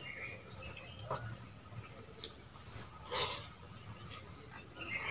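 Short high chirps from a small bird, repeating about every two seconds, over soft clicks and squelches of hands mixing watered rice in steel bowls.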